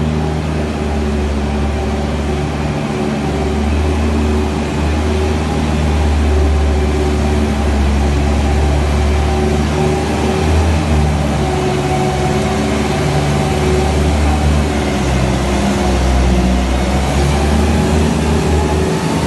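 Bobcat skid-steer loader's engine running steadily under work, its pitch drifting slightly and rising a little near the end.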